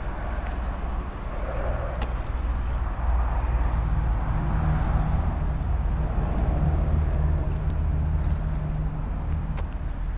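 A motor vehicle engine running, a low steady hum that grows louder from about three seconds in and eases off near the end, over a wash of traffic noise.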